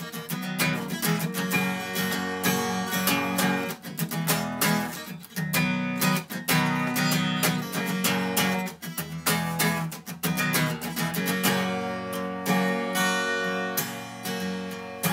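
Acoustic guitar strummed steadily in an instrumental passage of a song, with no singing.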